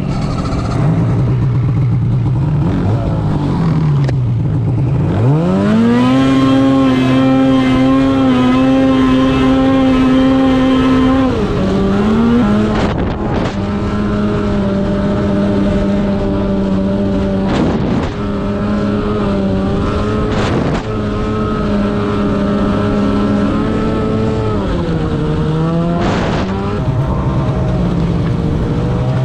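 Snowmobile engine running under way, heard from the rider's seat: it revs up sharply about five seconds in and holds high, eases down a step around twelve seconds, then dips briefly and picks back up near the end. A few short bursts of noise break in along the way.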